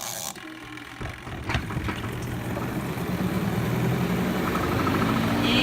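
Spin-dryer motor of a Costway twin-tub mini washing machine starting up about a second in and spinning up, a hum that rises slowly in pitch and grows louder. It is fast to start.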